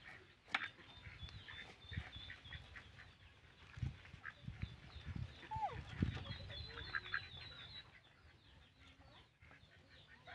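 Birds calling faintly in the background, including a quick run of short high chirps partway through, over soft knocks and rustling as a pineapple is cut with a kitchen knife.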